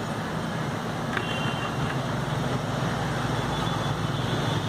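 Steady outdoor background noise: a low rumble under an even hiss, with a faint brief tone about a second in.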